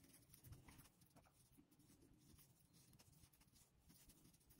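Near silence: faint, scattered small ticks and rustle of a crochet hook working yarn.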